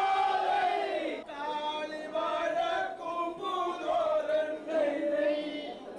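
A group of men singing together in a chant-like unison song, with long held notes that glide up and down.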